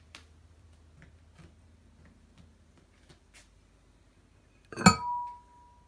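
A few faint handling clicks, then the lid of a glazed pickling crock knocks once loudly against it as it is taken off, leaving a short ringing tone.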